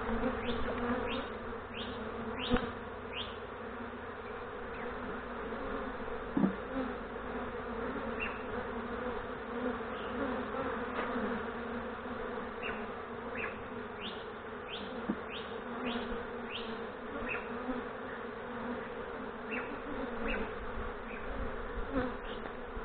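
A dense cloud of honey bees buzzing in a steady drone around a mini nuc box, the colony's bees flying up after being transferred into it. Two brief knocks stand out, one about two and a half seconds in and a louder one about six and a half seconds in.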